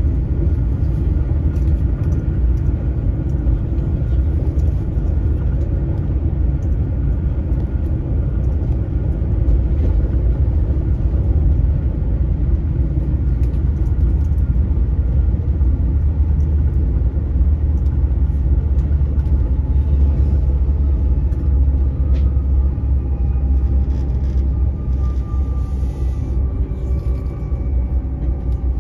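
Steady low rumble of an Öresundståg electric train running at speed, heard from inside the carriage, with a faint whine above it that grows a little clearer in the second half.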